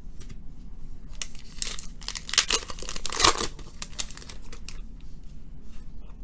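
The wrapper of a 2017 Panini Chronicles baseball card pack being torn open and crinkled in the hands, loudest and most crackly from about one to three and a half seconds in.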